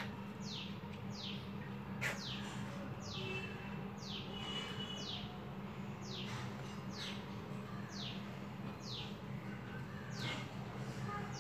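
Bird chirping: a string of short, high notes, each sliding down in pitch, repeated about once or twice a second over a steady low hum. A single sharp click comes about two seconds in.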